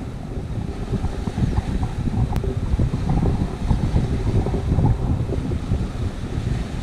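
Wind buffeting the microphone, a rough, uneven rumble, with one short sharp click about two and a half seconds in.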